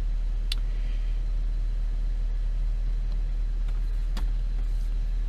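Saab 9-3's turbocharged four-cylinder petrol engine idling steadily on a cold start, with two short clicks about half a second and about four seconds in.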